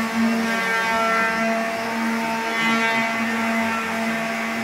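Electric drywall sanding machine's motor running with a steady hum.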